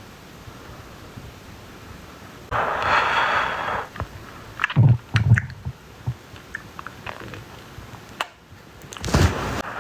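A man's stomach growling as he sips a drink: a hissing sip, then short low gurgles about five seconds in and again near the end.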